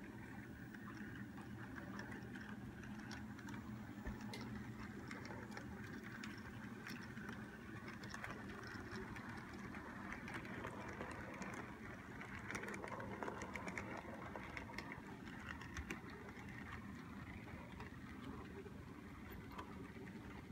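N scale model freight train running slowly on the layout's track: a faint steady hum with scattered light clicks of the wheels over the rails.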